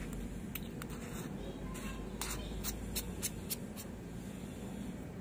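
Light, sharp clicks from the side turret knob of a Marcool Stalker HD 3-18x50 riflescope being turned by hand, about a dozen irregular clicks through the first four seconds. A steady low hum sits underneath.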